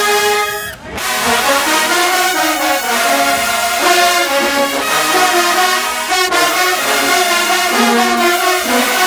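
Marching band brass section playing, with trombones and trumpets. The band cuts off sharply for a short break just under a second in, then comes back in.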